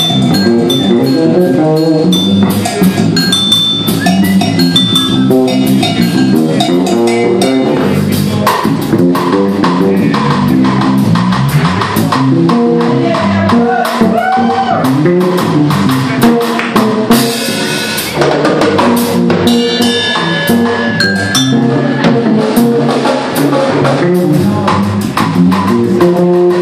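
A live rock band playing: a drum kit keeping a steady beat under guitars and bass.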